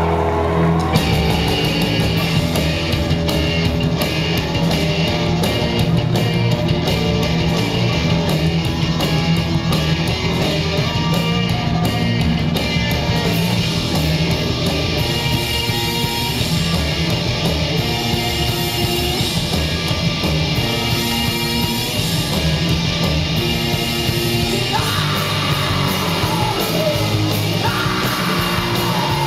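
Rock band playing live at full volume: distorted electric guitars, bass and drums, with singing and yelled vocals. The full band comes in about a second in.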